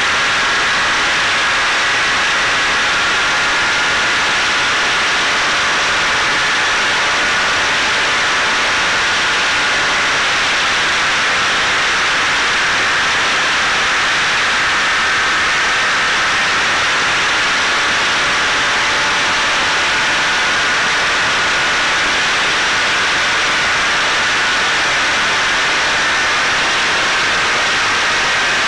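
Onboard sound of a Caipirinha flying-wing FPV plane in flight: a steady, loud rush of wind with a thin whine from its electric motor and propeller that drifts slightly in pitch.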